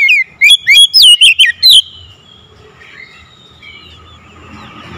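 Oriental magpie-robin singing loudly: a rapid run of sharp, whistled notes that slide up and down, lasting under two seconds, then only faint notes.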